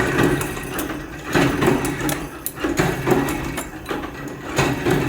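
Metalworking machinery clanking, with a sharp knock about every one to one and a half seconds over a steady machine hum.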